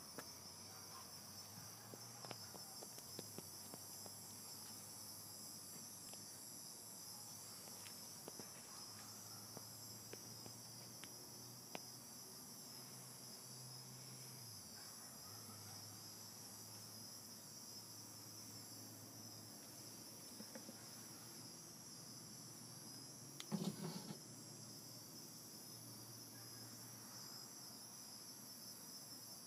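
Faint, steady high-pitched trilling of night insects, a continuous cricket-like chorus. A brief cluster of knocks stands out about 24 seconds in.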